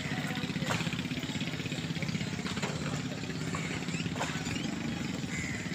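An engine idling, with a steady rapid low pulse and a few faint clicks over it.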